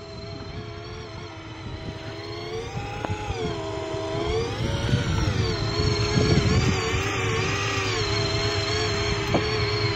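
Boat engine running, its pitch rising and falling several times as the throttle changes, over a low rumble, and getting louder over the first few seconds.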